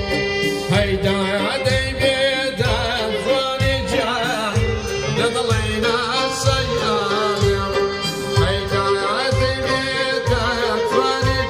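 Male vocalist singing a Kurdish song in an ornamented, wavering line, accompanied by violin, oud and santur over a steady low beat.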